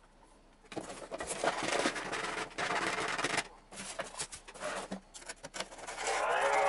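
Handling noise of a foam RC plane wing and a carbon wing rod: irregular scraping, rubbing and small knocks against the wooden table, starting under a second in. Music comes in near the end.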